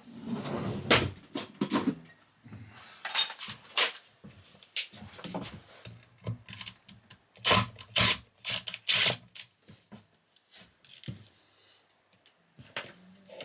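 Tools and metal parts being handled on a workbench: irregular clicks, knocks and short clatters, loudest about a second in and again around eight to nine seconds in.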